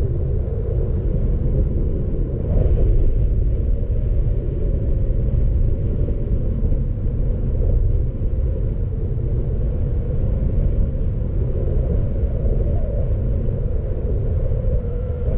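A car driving along a road, heard as a steady low rumble of engine and tyres on the road, with a brief rise about two and a half seconds in.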